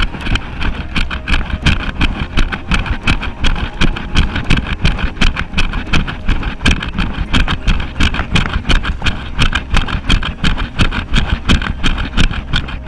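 A runner's footsteps and trekking-pole tips striking a dirt trail in a quick, steady rhythm of about three strikes a second, over a low rumble of wind on the body-mounted camera's microphone.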